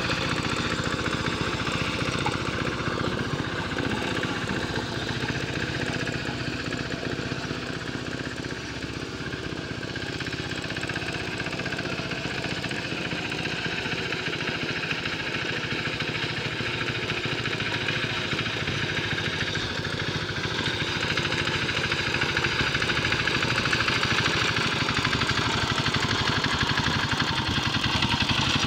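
Engine of a Quick Capung Metal mini hand tractor running steadily as it pulls a harrow through a flooded rice paddy. It grows fainter in the middle and louder again near the end as the tractor moves away and comes back close.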